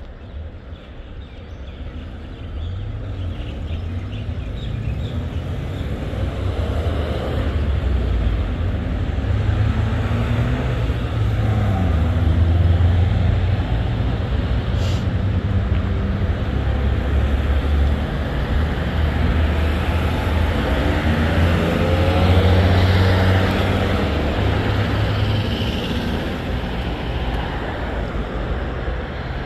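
Road vehicle noise: a deep, uneven rumble with a broad rushing hiss, growing louder over the first several seconds and then holding steady.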